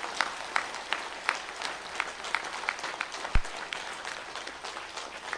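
Audience applauding, with a steady beat of claps about three a second running through it, and a single low thump about three seconds in.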